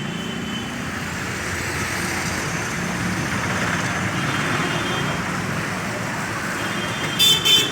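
Steady road traffic noise, with a horn sounding near the end.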